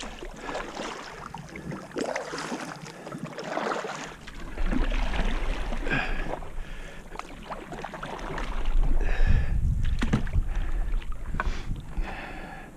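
Canoe paddles dipping and pulling through the water in uneven strokes, with splashes and drips. Wind buffets the microphone, heaviest in the second half.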